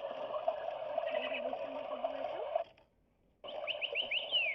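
Battery-powered toy bird chirping electronically: over a steady hum, then, after a brief dropout to silence, a quick run of falling chirps near the end.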